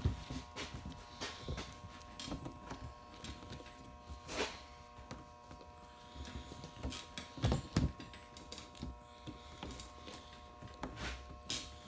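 Irregular knocks, taps and rubbing from hands working a rubber windshield gasket onto the edge of a Lexan windshield, with the loudest knocks around the middle. A steady background hum runs underneath.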